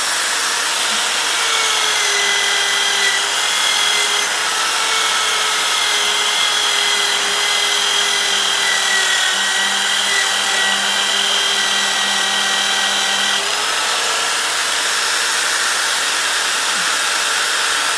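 Corded electric drill held in a bench vise, running steadily with a wire brush end scrubbing paint off cast iron doorbell parts. Its motor note drops slightly under load from about two seconds in and rises again about thirteen seconds in.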